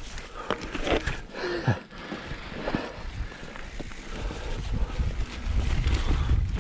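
YT Jeffsy mountain bike ridden over a dirt and rock trail: tyres rolling, with sharp knocks and rattles over bumps in the first couple of seconds. A low rumble grows louder toward the end as speed picks up.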